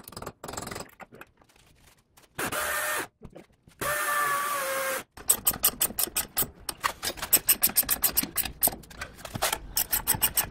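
A power drill runs in two short bursts, the second winding down slightly at its end. Then a socket ratchet wrench clicks rapidly and unevenly as it is worked back and forth, tightening a bolt that anchors the wooden stair stringer to a steel channel at the floor.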